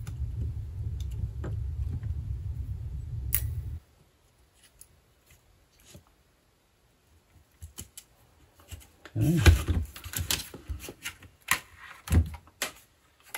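Clicks and rattles of small parts and a plastic case being handled while a portable tape recorder is taken apart. A low steady rumble cuts off about four seconds in, then near silence, then a quick run of sharp clicks and clatters near the end.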